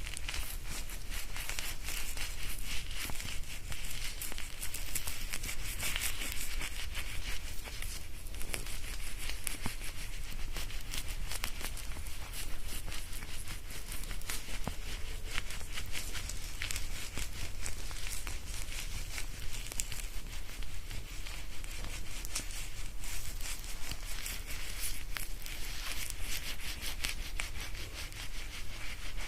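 Hair being shampooed, recorded binaurally: fingers working lather through the hair and scalp make a continuous, dense fine crackling without pauses.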